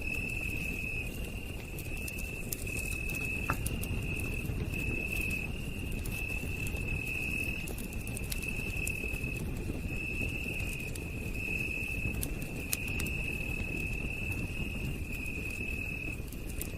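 Campfire crackling with scattered sharp pops over a steady low rumble, while an insect keeps up a high, steady trill in pulses about a second long separated by brief breaks.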